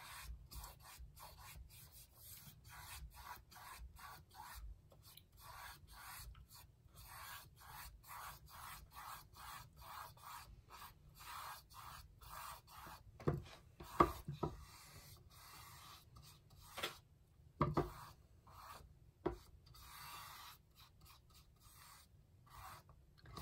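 A large paintbrush loaded with black paint rubbing across a canvas in soft, repeated back-and-forth strokes, about two a second. The strokes thin out in the second half, where a few light taps are heard.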